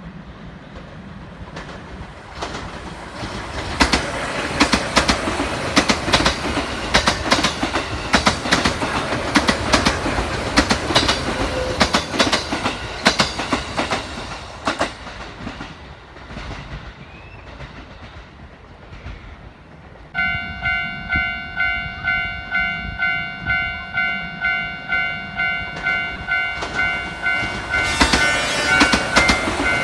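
A JR West 221 series electric train passing, its wheels clacking over the rail joints, fading away after about fifteen seconds. About two-thirds of the way through, an electronic warning bell starts and keeps ringing in even strokes, about one and a half a second.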